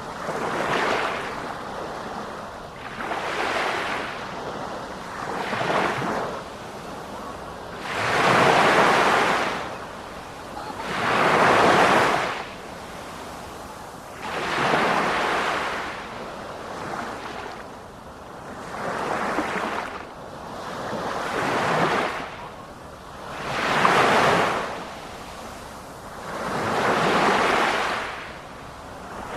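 Sea waves breaking and washing up on a shore. The surf swells and fades in repeated surges, about one every three seconds.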